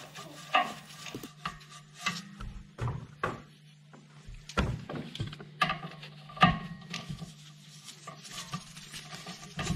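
Irregular metallic clinks and knocks as caliper carrier bolts are fitted to the rear brake and a socket and ratchet are put on them, over a low steady hum.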